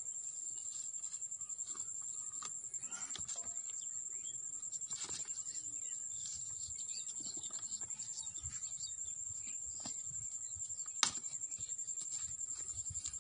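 Steady high-pitched insect chirring, like crickets, with irregular rustling and crunching as a cow feeds with its muzzle in a plastic crate of fodder. One sharp click about eleven seconds in.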